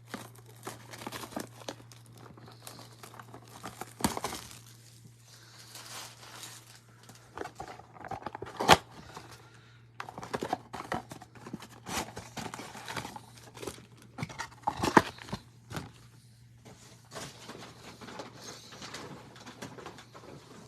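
Plastic wrapping crinkling and tearing as blaster boxes and packs of trading cards are unwrapped and handled, with scattered clicks and two sharp snaps, about nine and fifteen seconds in. A steady low hum sits beneath it.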